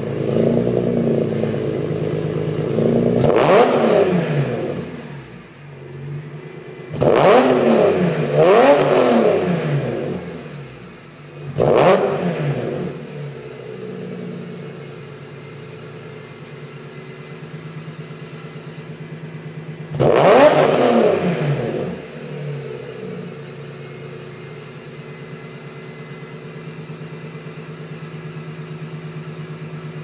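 BMW E46 M3's S54 straight-six, breathing through aftermarket Agency Power headers and muffler, idling and free-revved in five blips that each rise and fall back to idle: one, then two in quick succession, a short one, and a last one about two-thirds of the way through. After that it settles into a steady idle.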